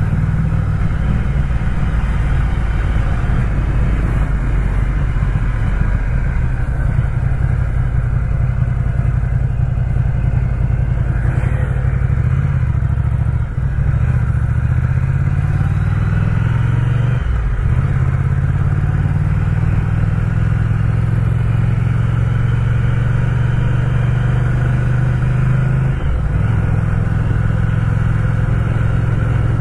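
Ducati Scrambler's air-cooled L-twin engine running under way, heard from the rider's seat, its note dropping and climbing again a few times through the ride.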